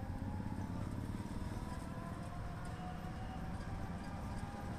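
Street traffic heard from an open rickshaw as it rolls along: a steady low rumble of the ride and passing engines.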